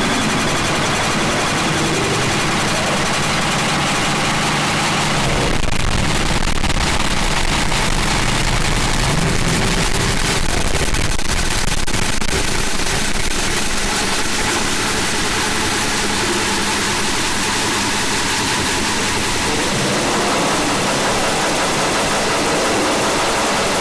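Harsh noise music: a loud, unbroken wall of distorted static covering the whole range from deep rumble to hiss. Its low rumble thickens about five seconds in, and the texture shifts again near the end.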